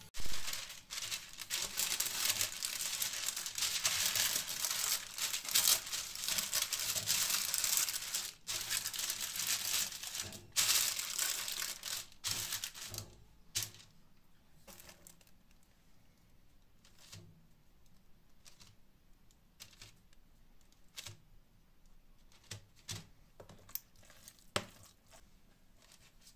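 Sheet of baking parchment rustling and crinkling loudly as it is handled and spread over a wire oven rack. About halfway through this stops, leaving only a few soft taps and ticks as slices of bread are laid on the paper.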